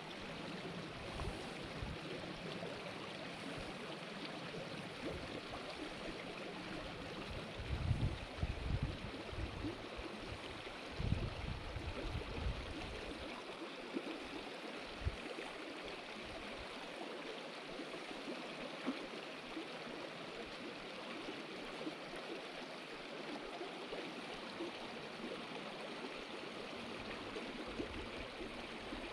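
Shallow, rocky river rushing and gurgling over stones in a steady, even flow. A few brief low thumps break in about eight and eleven seconds in.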